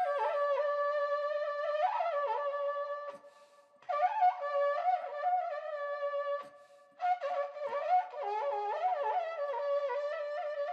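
Trutruka, a long cane horn with a cow-horn bell, blown in three long phrases with short breaths about three and six and a half seconds in. Each phrase holds a steady tone while higher notes waver and slide above it.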